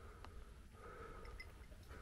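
Near silence: faint background noise with a couple of faint clicks.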